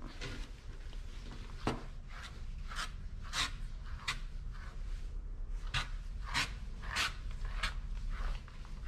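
Slicker brush drawn through a Maine Coon's long coat: a run of about a dozen short brushing strokes, irregularly spaced, roughly one or two a second.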